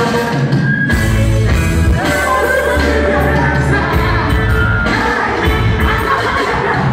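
Live dancehall reggae: a male vocalist sings into a microphone over a loud backing track with heavy bass.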